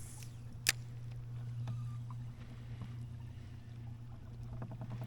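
Boat motor running with a steady low hum, and a single sharp click about two-thirds of a second in.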